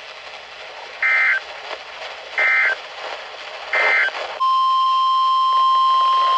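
Emergency Alert System broadcast over weather radio: three short bursts of digital SAME data tones about a second and a half apart over radio hiss, then the long steady NOAA Weather Radio warning alarm tone starts about two-thirds of the way in. These signal that a new warning is about to be read.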